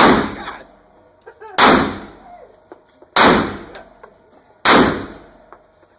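Large-calibre handgun fired four times, about one shot every second and a half, each shot ringing out in the reverberant space of an indoor range.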